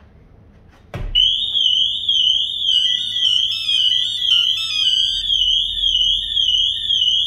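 Pandora Light Pro car alarm set off: a click about a second in, then the siren warbling up and down two to three times a second. In the middle comes a stepping run of shorter beeps, the pager remote alerting that the alarm has gone off.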